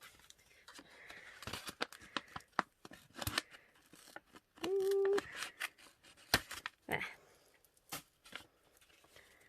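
Scissors snipping through packaging: a run of sharp snips and clicks with rustling between them, the loudest about three seconds in, around six seconds in and near the end. A short hummed note about five seconds in.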